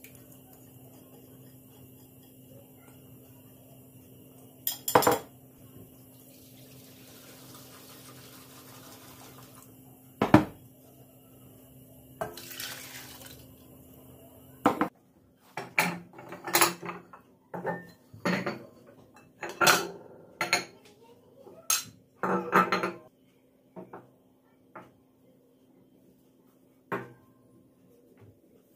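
Dishes and cutlery clinking and clattering as they are handled, densest in the second half, with a few sharper knocks earlier on and two short spells of running water. A steady low hum runs underneath.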